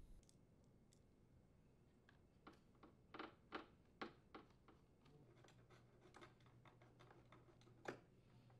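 A few faint, scattered clicks as a Phillips screwdriver drives the mounting screws into a dishwasher's front housing, metal tool on screw heads and bracket.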